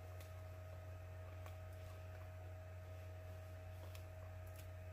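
Steady low electrical hum with a faint higher steady tone over it, and a few faint scattered clicks.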